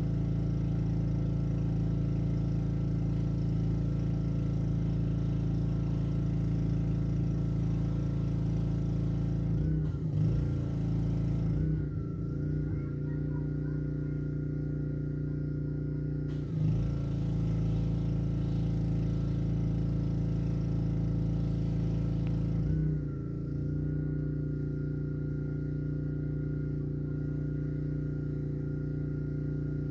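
Black Max pressure washer's Honda engine running steadily, with the spray hiss starting and stopping a few times as the trigger is used. The engine note dips briefly at each change.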